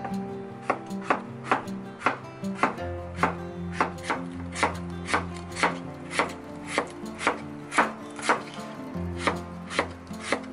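Chef's knife slicing cucumber into thin strips and knocking on a wooden cutting board, about two even cuts a second, with background music under it.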